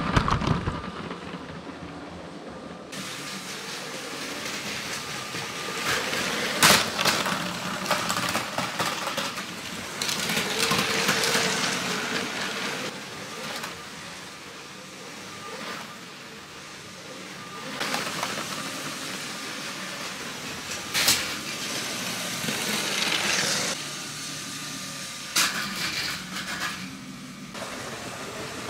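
LEGO Power Functions train motors whirring and plastic wheels clattering over the track as model trains run past, swelling and fading several times as they come close and move away, with a few sharp clicks along the way.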